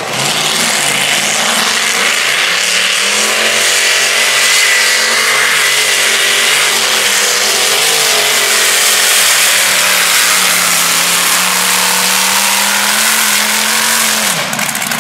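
Supercharged engine of a modified-class pulling tractor held at high revs under load through a pull, its pitch wavering slightly. About a second before the end the revs fall away sharply as the pull ends.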